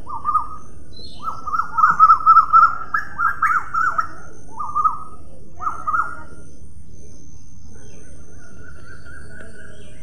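A small songbird calling in quick, chattering phrases of up-and-down chirps: one short phrase at the start, a longer run from about one to four seconds in, then two brief phrases, followed by a fainter thin note near the end.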